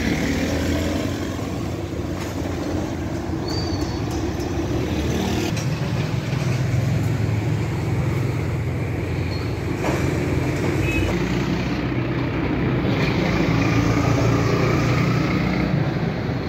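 Honda CG 125's single-cylinder four-stroke engine running steadily on the road, with traffic noise around it; the sound grows a little louder toward the end.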